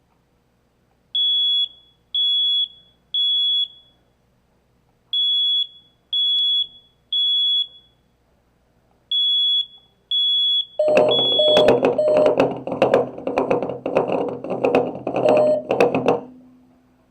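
Smoke alarm sounding the T3 temporal-three pattern: three high half-second beeps a second apart, then a pause, repeated three times. About eleven seconds in, a louder, rough sound of rapid pulses starts over the last beep, runs for about five seconds, then stops.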